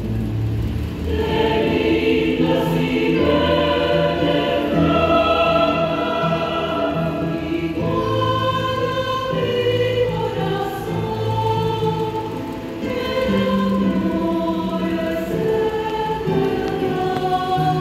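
Mixed choir of men's and women's voices singing in Spanish, holding notes in chords that shift every second or two, with piano accompaniment.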